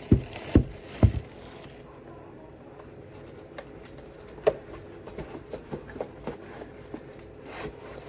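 Ceiling fan parts and their packaging being handled and set down during unpacking: three sharp knocks in the first second, then a scatter of lighter taps and clicks.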